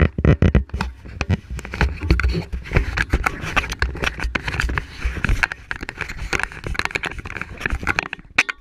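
A sweatshirt sleeve rubbing and brushing against the camera's microphone, giving dense, irregular crackling and scraping handling noise. A low rumble underneath fades about five seconds in.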